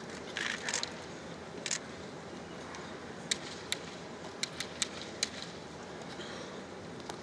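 Bamboo shinai knocking together as two kendo fencers probe with crossed swords: about six sharp, separate clacks between three and five and a half seconds in, over the steady hum of a large arena crowd. A few short scraping sounds come in the first second.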